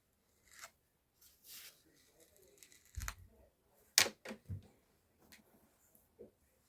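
Rustling and a few sharp clicks and knocks of small objects being handled, the loudest click about four seconds in.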